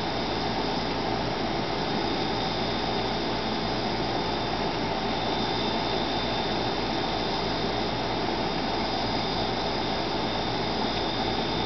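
Steady, unchanging hiss-like noise with a thin high whine running through it; no bird calls or wing hum stand out.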